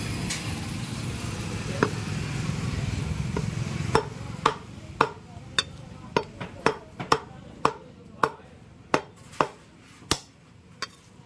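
Butcher's cleaver chopping mutton: one strike, then about a dozen sharp chops in quick succession, roughly two a second, starting about four seconds in. Underneath is a steady low rumble that fades as the chopping goes on.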